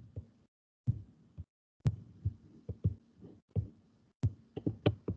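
An irregular string of short, dull thumps with sharp clicks on top, about two to three a second, coming quicker near the end, heard over a video-call microphone.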